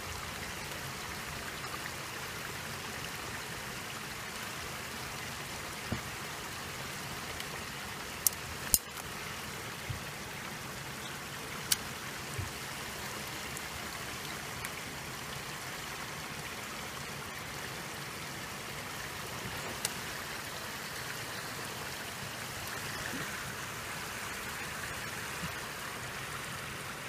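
Steady trickle of creek water, an even hiss with a few sharp clicks, two of them close together about eight seconds in.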